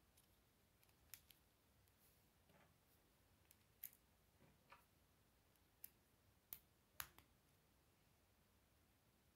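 K'Nex plastic rods and connectors clicking as the model is handled and pieces are fitted together: about eight short sharp clicks, spaced irregularly, the loudest about seven seconds in.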